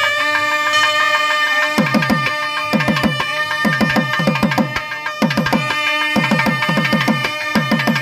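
Nadaswarams holding long, steady notes over thavil drums. From about two seconds in, the thavils play a driving rhythm of sharp stick cracks and clusters of deep strokes that drop in pitch, about once a second.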